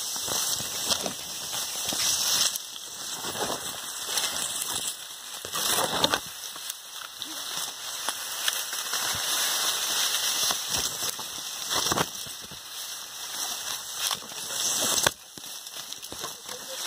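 Dry sugarcane leaves and stalks rustling and crackling as people push through a dense cane field, with a few louder cracks along the way.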